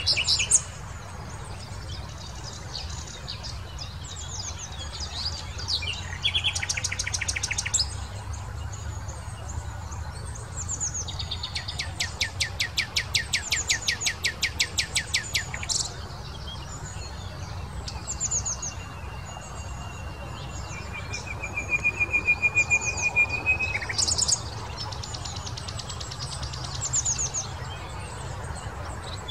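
Common nightingale singing in separate phrases with pauses between them: rapid repeated strokes, clear thin whistles and trills. Midway comes a long run of fast repeated notes lasting about four seconds. A steady low rumble sits underneath.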